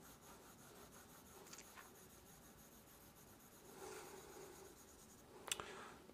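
Faint rubbing of a stylus tip stroking across an iPad's glass screen, swelling briefly about four seconds in, with a couple of light clicks near the end.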